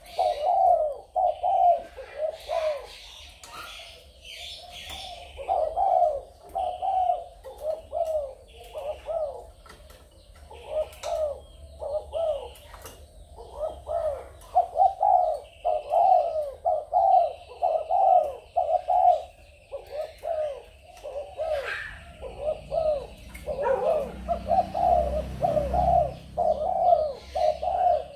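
Spotted doves cooing over and over in a steady run of short, low coos, with some higher chirps mixed in and a low rumble about three-quarters of the way through.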